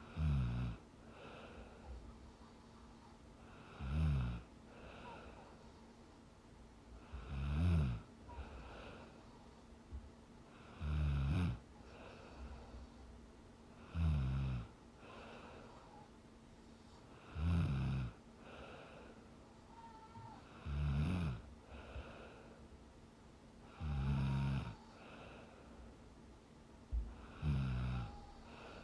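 A sleeping young woman snoring in a steady rhythm: nine low, rattling snores of about a second each, one every three and a half seconds or so, with fainter breaths between them.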